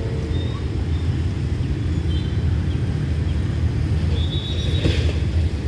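Steady low rumble of an approaching Hitachi diesel-electric locomotive, number 4514, with its train. A few faint high chirps, and a brief hiss about five seconds in.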